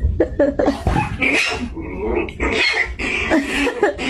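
An animal vocalising in a series of short, rough bursts.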